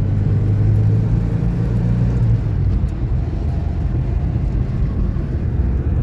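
Engine and road noise inside a moving car: a steady low drone, with a deeper hum that eases off about two and a half seconds in.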